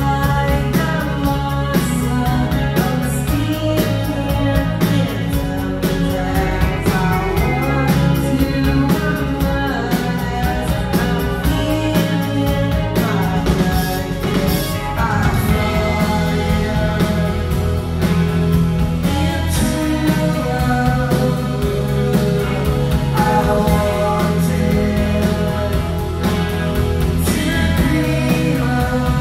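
A rock band playing live, with guitars and drums at a loud, steady level.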